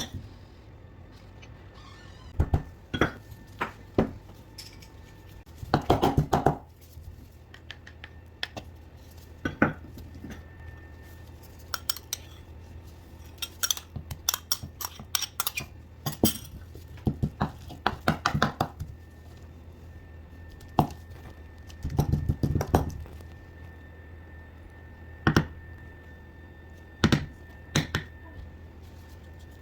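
Kitchen utensils, dishes and pans clinking and clattering in scattered bursts over a steady low hum.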